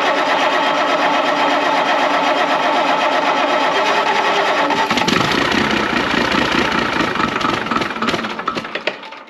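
Caterpillar diesel being cranked over by its starter without firing, running steadily, then changing about five seconds in and dying away near the end. The engine has built no oil pressure and will not start without it.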